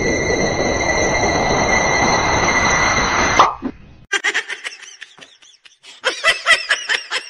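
A steady hiss with a high whine that cuts off suddenly about three and a half seconds in. Then two runs of rapid, rising-and-falling laughter, most likely a laughter sound effect added over the clip.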